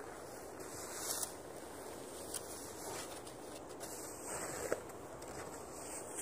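Snow shovel scooping deep snow, with a few short sharp knocks of the blade, over a steady hiss of wind.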